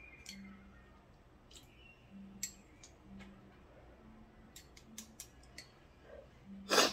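Wooden chopsticks clicking against a ceramic bowl as instant ramen noodles are lifted from the pot, with a short, loud slurp of noodles near the end.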